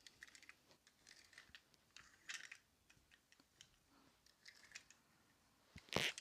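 Faint scuffs and small clicks of die-cast toy cars being picked up, set down and pushed across carpet, with a sharper click near the end.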